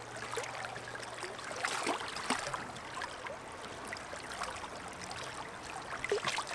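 River current flowing with small irregular splashes and trickles as hands work a trout free inside a landing net held in the water.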